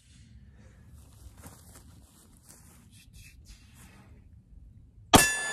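A few seconds of faint handling noise, then about five seconds in a single sharp pistol shot from a Glock 19X 9 mm. A steel target rings on after the shot.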